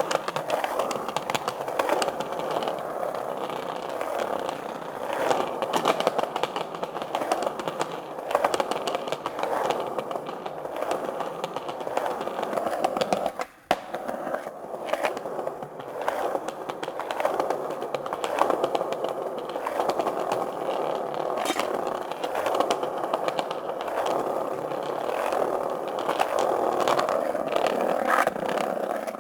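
Skate wheels rolling continuously over a concrete street: a steady gritty rolling noise with many small clicks, broken by a short gap near the middle.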